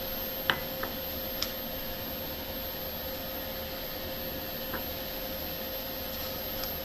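Steady hiss with a faint constant hum, broken by a few light sharp clicks in the first second and a half and once more near the end.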